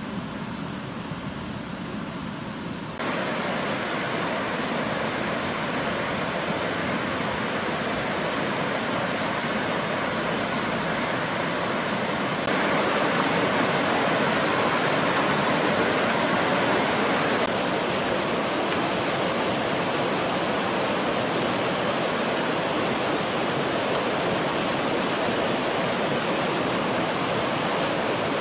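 River water rushing over rocky rapids in a steady, loud rush. It jumps louder about three seconds in and again around the middle, then eases slightly a few seconds later.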